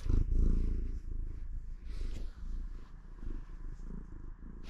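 Tabby cat purring steadily while being stroked on the head, loudest in the first second when the microphone is right up against its face.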